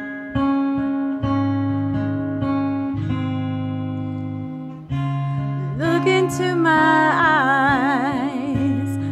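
Music: acoustic guitar playing sustained chords that change about once a second. A singing voice comes in about six seconds in, holding notes with a strong vibrato.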